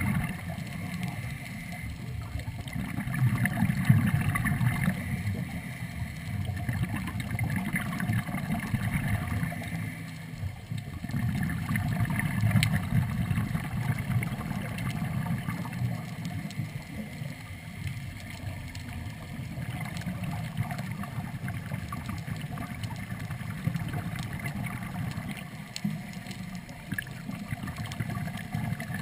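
Muffled underwater noise from divers breathing on a third-lung hookah rig: a low rumble of regulator breaths and exhaled bubbles that swells and fades every few seconds, with faint bubbling hiss.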